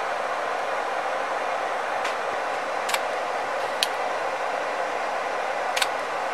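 Steady airy whir of an electric desoldering tool running while MOSFETs are desoldered from a subwoofer amplifier board, with three small sharp clicks about three, four and six seconds in.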